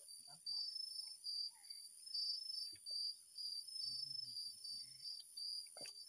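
Night-time chorus of crickets and other insects: a high chirping that comes in short repeated pulses over a steady, even higher whine. Faint low voices murmur about two-thirds of the way through, and there is a brief tap near the end.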